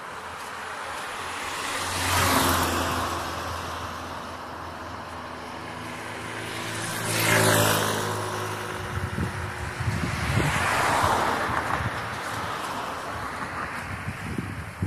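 Cars passing on the road alongside, engine and tyre noise swelling and fading twice, loudest about two and seven seconds in, the engine's pitch falling as the second one goes by. Wind buffets the microphone in the second half.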